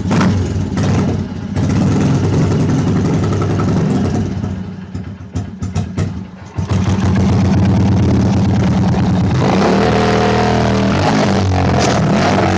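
Straight-piped dirt bike engine running loud. About four and a half seconds in it sags and nearly dies, with a few sharp pops, then catches again just after six seconds and runs steadily.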